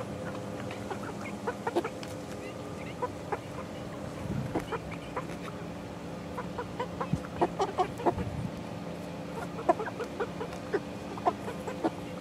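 A flock of young chickens about eleven weeks old clucking and cheeping in many short, scattered calls, over a steady low hum.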